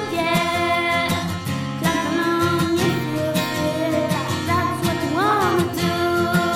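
A girl singing a song into a microphone over an instrumental accompaniment, with a wavering held note about five seconds in.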